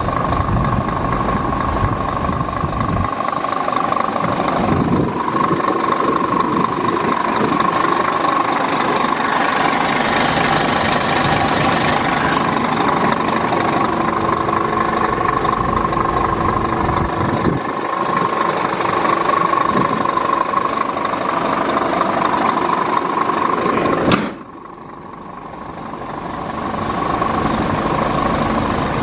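Scania R 490 truck's diesel engine idling steadily. Near the end a sharp knock, after which the sound drops away and slowly comes back.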